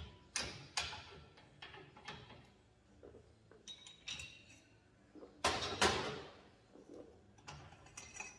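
Irregular metal clanks and clicks from a manual tube bender being worked to bend a length of 1¼-inch tube. Two louder clanks come a little past halfway.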